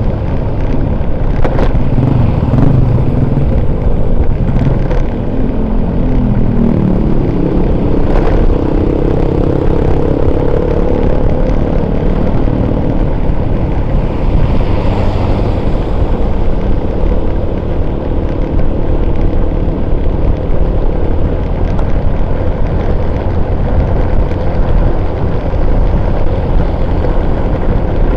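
Engine of a moving motor vehicle running on the road, with steady wind and road noise on the microphone. Its pitch rises between about four and ten seconds in as it speeds up.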